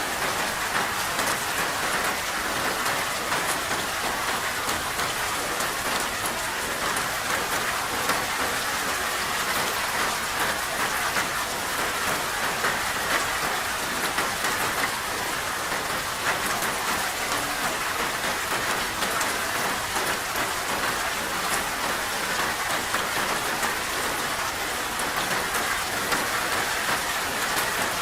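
Steady rain falling: an even hiss with many small drop ticks, unchanging in strength.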